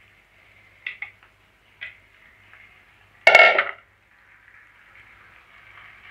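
Kitchen cooking sounds at a clay pot: a few soft clicks as raw chicken pieces go in, then one loud metallic clang with brief ringing about three seconds in, like a bowl or utensil being set down. A faint steady sizzle runs underneath.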